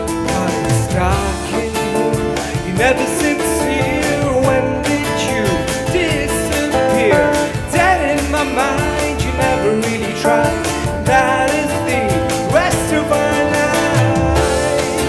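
Live band music: strummed guitar chords under a melody line that slides up and down in pitch, over a steady beat.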